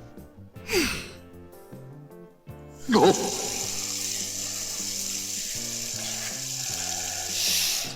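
Background music, with a short falling whoosh about a second in, then a steady rush like water running from a tap from about three seconds in until near the end.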